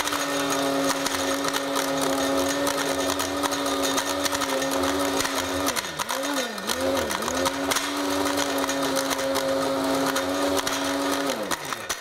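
Cuisinart Grind Central DCG-12BCTG blade grinder's motor running steadily while grinding whole nutmeg, with constant fine clicking from the pieces. About six seconds in its pitch dips and recovers twice, as if briefly let off and pressed again, and just before the end it spins down and stops.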